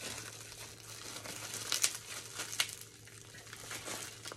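Small clear plastic bag crinkling in the hands as it is opened, with a couple of sharper crackles about two seconds in.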